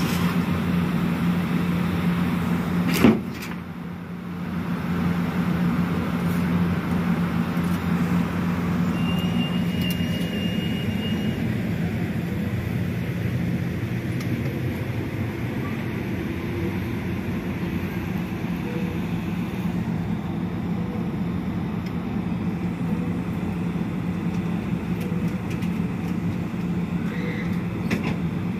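Diesel passenger train heard close up: a steady low engine hum, with one sharp loud knock about three seconds in. From about four seconds a broader rushing rumble joins it, with a brief thin high whine around ten seconds.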